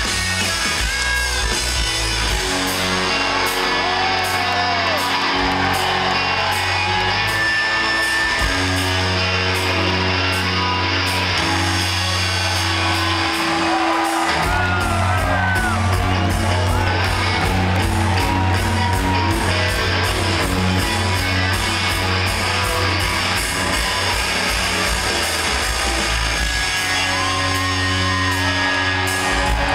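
Rock band playing live at concert volume, electric guitars, bass and drums over a steady beat, heard from within the audience, with a few shouts rising over the music.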